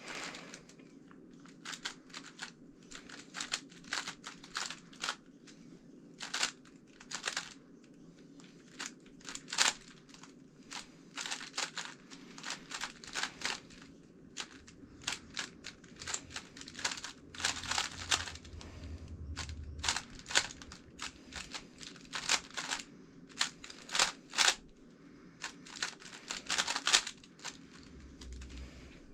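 GAN356 X 3x3 speed cube being turned by hand: quick irregular runs of sharp plastic clicks and clacks as the layers snap round, with short pauses between runs.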